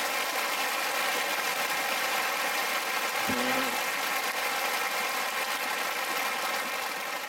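Large hall audience applauding, a dense, even clapping. One short call rises above it about three seconds in.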